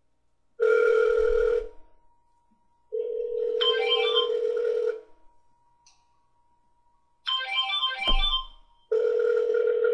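Telephone ringing heard over a phone line as a call-back call is put through. It comes in bursts of a steady ring tone one to two seconds long, some mixed with a stepping, melodic ringtone. There is one sharp click near the end.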